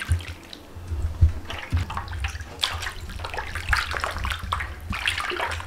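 A hand sloshing and splashing through buttermilk in a large aluminium basin in irregular bursts, pressing freshly churned butter lumps together into one mass.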